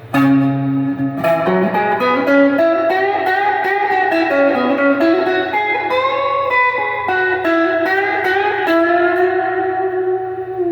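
Donner DST200 electric guitar on its middle pickup alone, played through an overdrive pedal: a bluesy lead line of picked notes with string bends, ending on a held note with vibrato. A steady low hum sits underneath.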